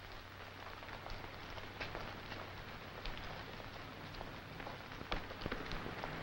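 Surface noise of an old film soundtrack: a steady hiss with scattered crackles and clicks over a low hum.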